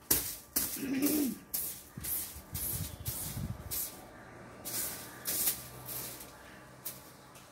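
A bedsheet being brushed down by hand in repeated short swishing strokes, about two a second, with a pause a little past the middle.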